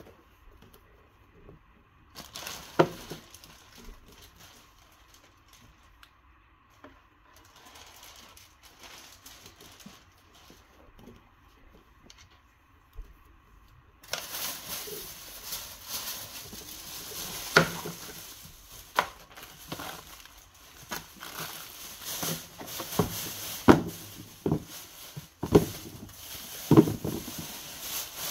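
Handling noise from unboxing a pair of sneakers: paper and plastic rustling and crinkling, with scattered sharp knocks and taps as the shoes and cardboard box are moved. It is sparse and quiet at first, then becomes denser and louder about halfway through.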